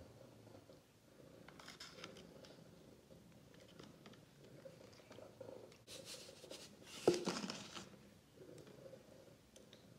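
Fingers squishing and poking a salt-activated shampoo slime in a plastic tub: faint wet squelches and small clicks, with a louder squelch about seven seconds in.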